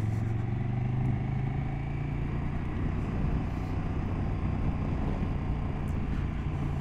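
KTM motorcycle engine running steadily on the move, with road and wind noise from riding.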